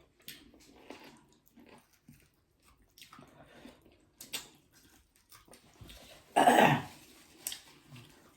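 Quiet eating sounds: soft chewing and small clicks and smacks of a meal of dhido and chicken curry, with one loud, short sound about six and a half seconds in.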